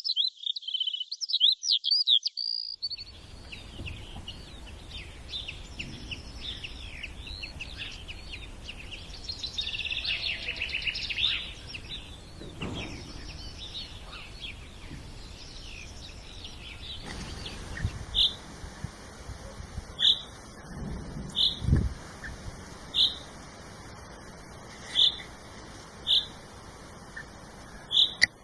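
Birds chirping and singing in quick high trills. About halfway through, the sound changes to a single bird repeating one short, high chirp about every second and a half.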